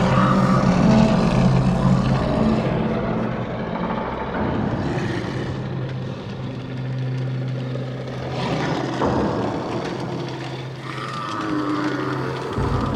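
Horror sound-design ambience: a steady low mechanical hum under a grainy rumble that swells and fades a couple of times, like a spacecraft's engine drone.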